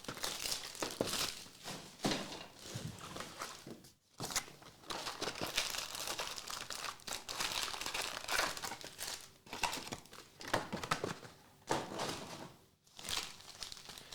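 Foil trading-card pack wrappers crinkling and tearing as packs are ripped open by hand, with brief pauses twice.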